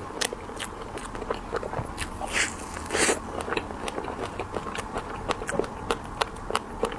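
Close-up crunching and chewing of candied haw, hawthorn berries in a hard sugar glaze: rapid sharp crackles of the glassy shell breaking between the teeth, with two louder crunching bites about two and a half and three seconds in.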